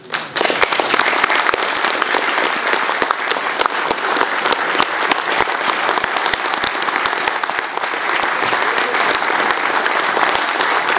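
Audience applauding: a dense clatter of many hands clapping that breaks out suddenly and carries on steadily.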